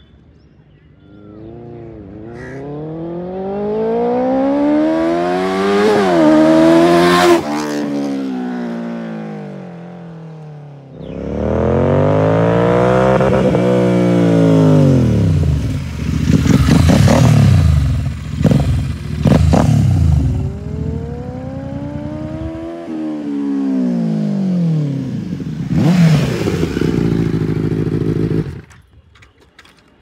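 Motorcycles making loud fly-by passes, three in turn. Each engine climbs in pitch as the bike accelerates toward and past, then drops away. A stretch of sharp, ragged revving comes in the middle. The bikes are a Royal Enfield Continental GT 650 parallel twin and a Benelli TNT 600i inline-four.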